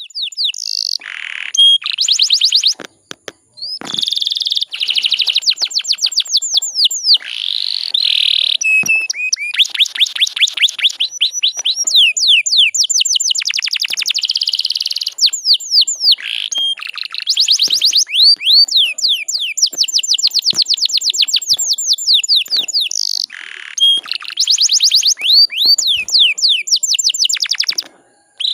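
Domestic canary, a female in breeding condition, calling in fast rolling trills of quick downward-sweeping chirps, with short breaks about three seconds in and near the end. This is the kind of female call used as a lure to set males singing.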